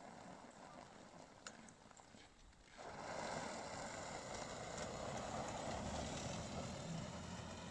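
Electric quad driving over packed snow: a steady hiss of tyres on snow with no engine note, louder from about three seconds in as the quad comes close.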